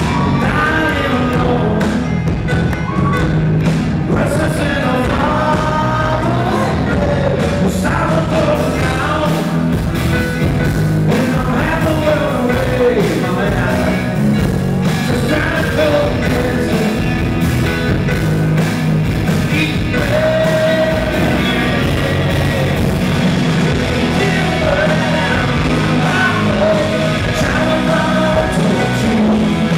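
Rock band playing live with electric guitars, drums and keyboards, a male lead vocal singing over them.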